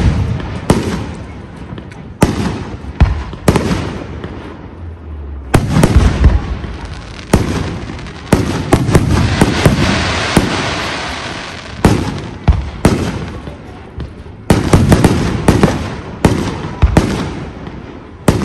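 Aerial firework shells bursting one after another, each a sharp bang, with a stretch of dense crackling about halfway through as crackling stars break. A quick run of bangs comes near the end.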